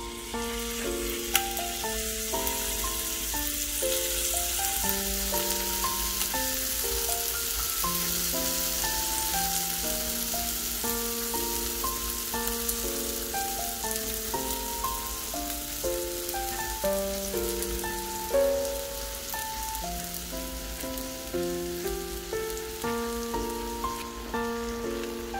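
Waffle batter sizzling on the hot greased plates of an electric waffle maker, a steady frying hiss. A simple background melody of held notes plays throughout.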